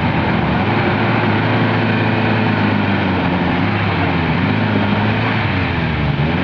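Off-road vehicle's engine running steadily and loud, its pitch wavering slightly up and down as it works.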